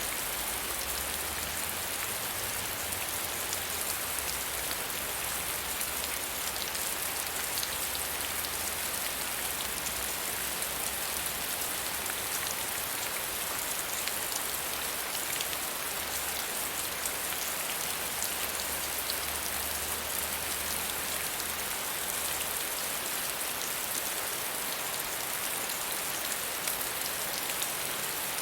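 Soft rain falling steadily: an even, dense patter of raindrops. A faint low rumble underneath stops near the end.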